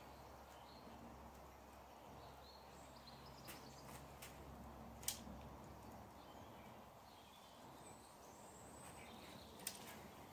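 Near silence: faint outdoor background with distant birds chirping, and a few sharp clicks of a caulking gun's trigger as it squeezes out a bead of silicone.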